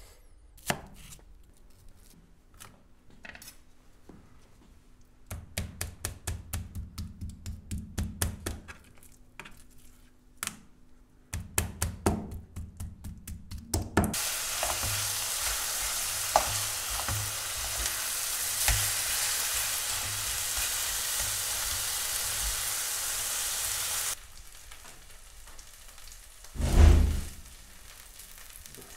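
A knife chops raw meat on a plastic cutting board in two quick runs of strokes. Then meat sizzles in a frying pan for about ten seconds and cuts off abruptly. A loud low thump comes near the end.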